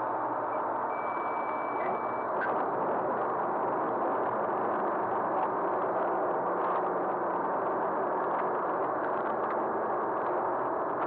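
Aquila A211's Rotax 912 S four-cylinder engine and propeller running at takeoff power on the takeoff roll, a steady dense noise heard in the cockpit that grows slightly louder about two seconds in. A short, steady high beep sounds about a second in.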